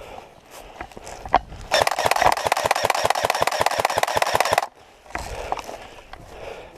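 Airsoft electric gun firing on full auto: a rapid, even string of shots with the gearbox cycling, about ten a second, lasting about three seconds and cutting off suddenly. Light rustling and small clicks of gear and footsteps come before and after it.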